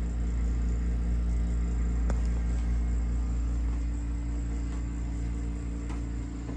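Steady low machinery hum with a pitched drone, running evenly, with a light click about two seconds in.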